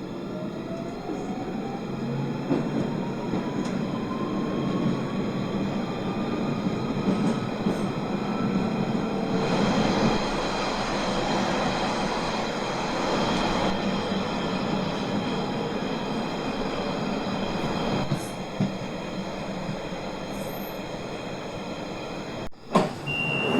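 London Underground 1992 stock tube train pulling away. Its traction motors give a whine that rises steadily in pitch over the first nine seconds or so, then the train runs on at speed with a steady rumble of wheels on rails.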